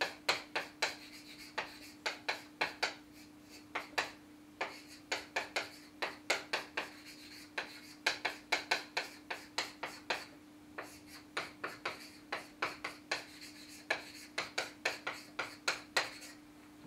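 Chalk writing on a chalkboard: quick clusters of short taps and scrapes as block capital letters are written, with a short pause about ten seconds in. A steady low hum runs underneath.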